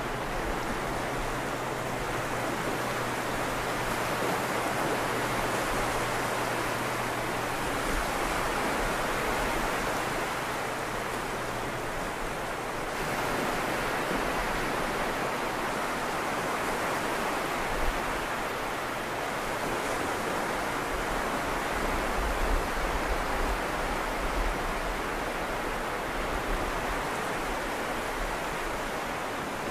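Small waves breaking and washing up a flat sandy beach: a continuous rush of surf that swells and eases every several seconds. A faint low hum sits underneath and stops partway through.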